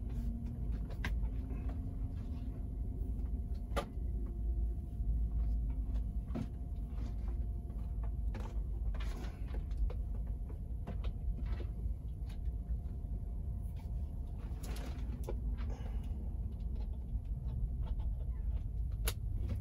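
Steady low rumble, with scattered sharp clicks and knocks from an extension cord and plug being handled.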